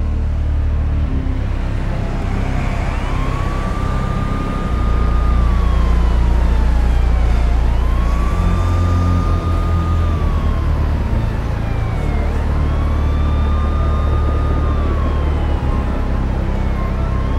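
Siren wailing in slow cycles, rising quickly, holding and then falling, about every four and a half seconds, over a deep steady low drone.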